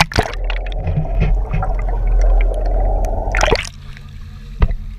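Water gurgling and sloshing, muffled and loud for about three seconds, with a sharp noise at the start and another about three and a half seconds in.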